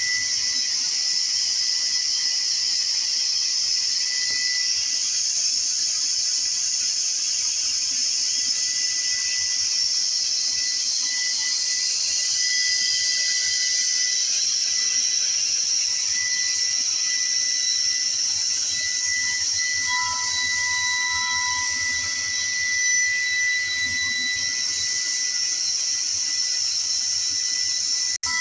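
Sliding-table panel saw running with no wood being cut: its spinning circular blade gives a steady high whine over a hiss.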